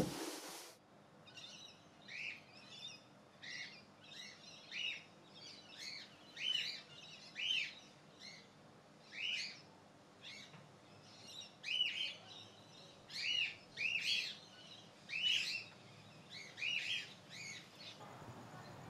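Small birds chirping: short, sharp chirps repeated about once or twice a second, on and off throughout.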